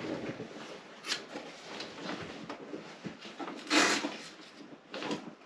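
Rummaging through gear: a run of scattered knocks, rustles and clatters as things are moved and handled, with the loudest clatter about four seconds in.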